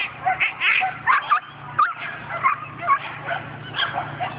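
Australian Cattle Dog giving a rapid string of high yips and whining barks, about two or three a second. It is the excited noise of a dog held back at the start line, eager to chase the lure.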